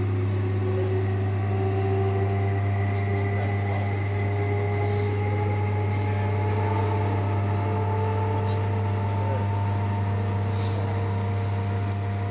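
Interior running sound of a Class 317 electric multiple unit at speed: a steady low hum, with traction motor and gear whine rising slowly in pitch over the first several seconds and then holding steady as the train accelerates. Two brief high hisses come about five seconds in and again near the end.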